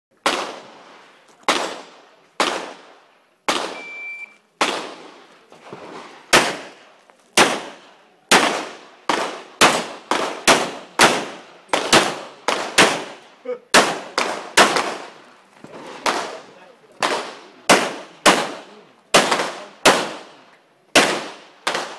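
Handgun shots ringing out with short echoes, about thirty-five of them, irregularly spaced and some in quick pairs, during a practical-shooting stage. A brief high electronic beep sounds about four seconds in, the shot timer's start signal.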